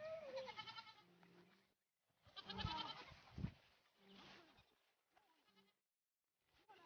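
Goat bleating: two loud wavering bleats in the first few seconds, followed by a few fainter bleats.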